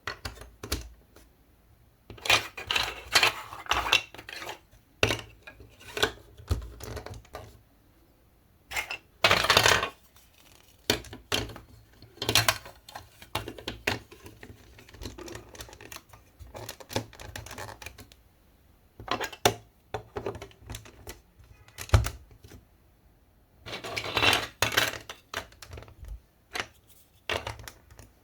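Hard marble-run pieces clicking and clattering in irregular bursts, with single sharp clacks between the busier stretches.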